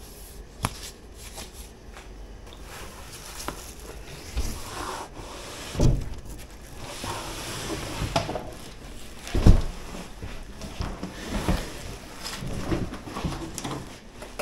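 Plastic wrap and foam rustling and cardboard scraping as a wrapped 20-inch e-bike is lifted out of its shipping box, with scattered knocks and two heavy thumps about six and nine and a half seconds in.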